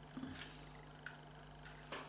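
A few faint clicks and taps of a screwdriver against the small plastic housing of a car's reverse light switch as it is pried apart, one about half a second in, one just after a second and one near the end, over a steady low hum.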